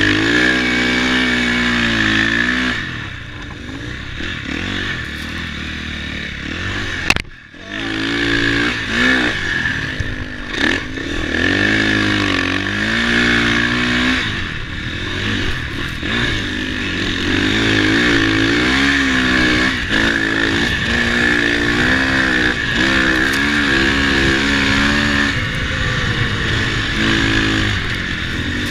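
KTM single-cylinder four-stroke dirt bike engines revving up and down under throttle, over and over. The sound briefly drops out about seven seconds in.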